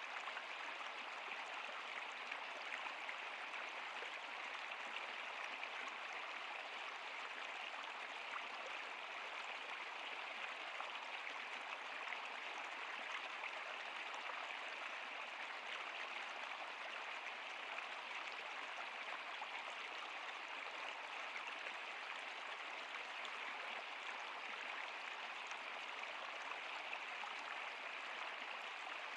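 Stream water running over rocks, a steady even rush with no breaks.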